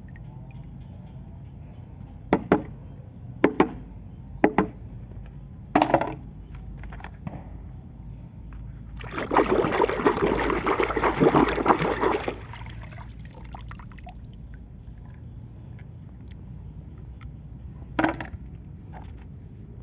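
Water trickling and splashing as toy cars are washed, with a louder rush of water for about three seconds near the middle. A few sharp knocks from the toys being handled come in the first six seconds and once more near the end.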